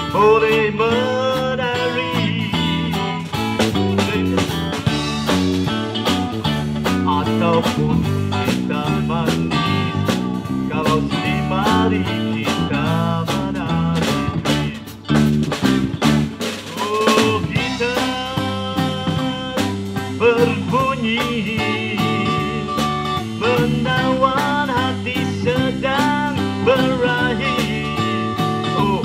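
Live band playing an upbeat twist number: electric guitar lead over electric bass and drum kit, with a brief drop in loudness about halfway.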